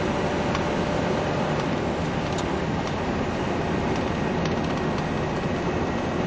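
Steady road noise of a vehicle driving along a wet highway, its tyres hissing on the wet pavement, with a few faint ticks.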